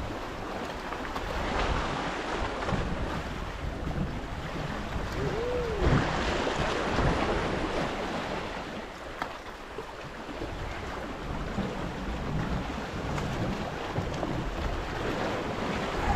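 Wind buffeting the microphone over sea water washing against rocks, the rush swelling and easing.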